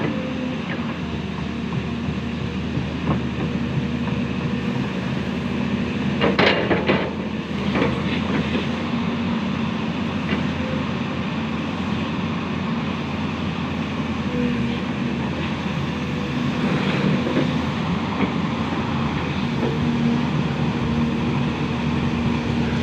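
Diesel engine of a LiuGong hydraulic excavator running steadily under work, with a few sharp clanks about six to eight seconds in.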